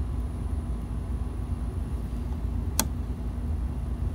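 Steady low rumble and hum, with one sharp click nearly three seconds in as the Sencore CRT tester's rotary function switch is turned.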